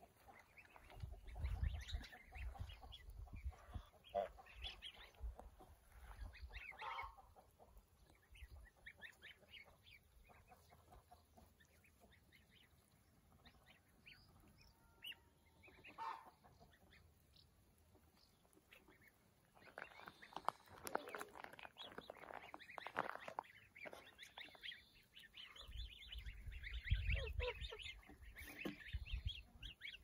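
Domestic goose and its goslings calling in scattered bursts of short high calls, with a quieter stretch in the middle. Low rumbles sound about a second in and again near the end.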